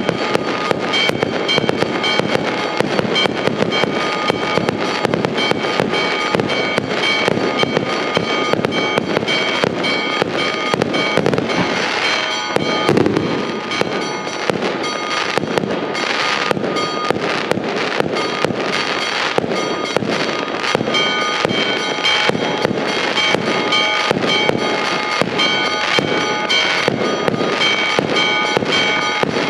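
Aerial fireworks display: a dense, continuous barrage of shell bursts and crackling, loudest with a rushing surge a little before the middle. Steady ringing tones run underneath, like church bells.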